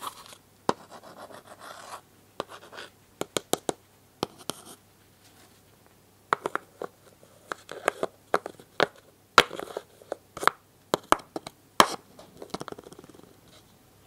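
Painted wooden toy pieces handled on a wooden ice cream shop puzzle board: a run of sharp wooden clicks and taps in clusters, mixed with short stretches of scraping and rubbing.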